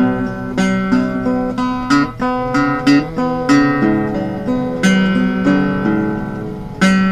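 Acoustic guitar playing an instrumental passage with no singing: strummed and picked chords with sharp attacks, each ringing out before the next.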